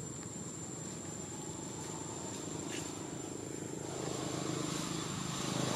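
Steady low hum of a distant engine, growing louder over the last two seconds, with a thin, high, steady tone above it.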